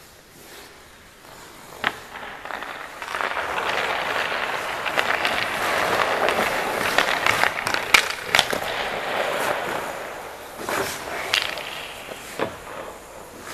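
Goaltender's ice skate blades scraping across the ice as he pushes sideways through his crease. The scraping swells in the middle and fades near the end, with sharp knocks of skates and pads now and then.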